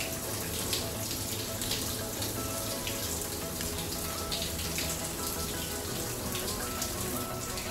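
Shower running: a steady hiss of falling water.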